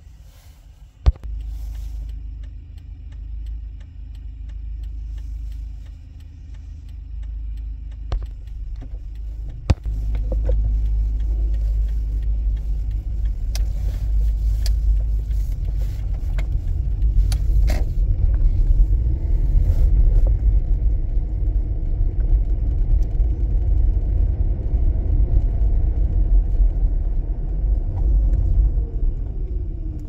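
2009 Toyota Prius hybrid on a road test, heard from inside the car: a low rumble of engine and road noise that grows clearly louder about ten seconds in as the car moves off from a stop. Two sharp knocks, about a second in and again near the rise.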